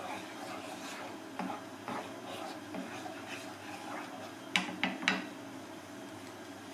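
Wooden spatula stirring and scraping a simmering sauce around a metal pan, with soft scrapes and taps, then three sharp knocks of the spatula against the pan about four and a half seconds in.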